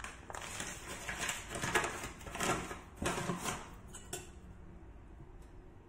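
Crinkly rustling of a flour bag being picked up and handled, in several short bursts that stop about four seconds in.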